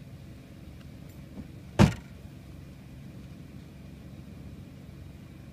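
A car's trunk lid slammed shut once, a sharp bang a little under two seconds in, just after a light knock. A low steady hum runs underneath.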